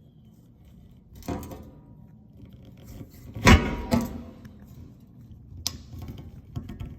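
Several separate knocks and clatters of handling, the loudest about three and a half seconds in, with lighter rattling between them.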